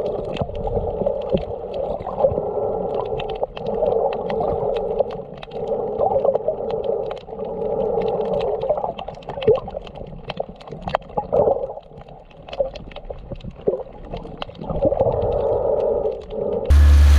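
Sound recorded by a camera below the water's surface: a muffled, wavering hum with many scattered sharp clicks and crackles. Near the end it cuts abruptly to a loud, steady low rumble.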